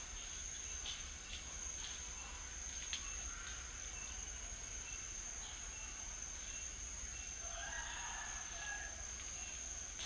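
Insects buzzing in one steady high-pitched tone, with scattered short bird chirps. About seven and a half seconds in, a rooster crows once for about a second and a half.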